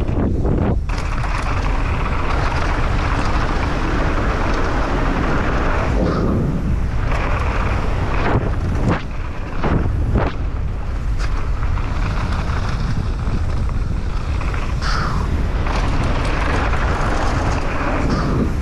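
Wind rushing over a GoPro's microphone as a mountain bike runs down a trail at speed, the tyres and bike rattling over the ground, with a few sharp knocks from bumps. The noise eases briefly twice, around a third and halfway through.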